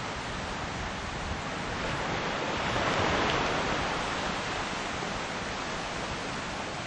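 Ocean surf breaking on a beach: a steady wash of white noise that swells as a wave crashes about three seconds in, then settles back.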